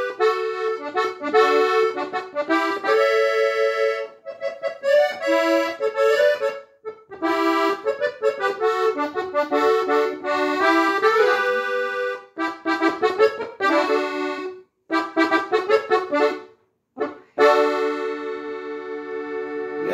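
Accordion playing a melody in the key of D, in phrases broken by short pauses, ending on a long held chord.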